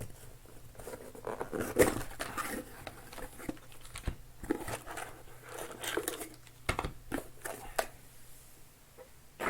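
Trading-card pack wrappers being handled and opened by hand: crinkling and rustling with scattered taps and clicks.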